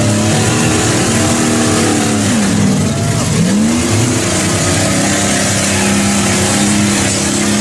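A vehicle engine running hard under load. Its pitch drops sharply and climbs back up about two and a half to three and a half seconds in, like revs falling off and picking up again.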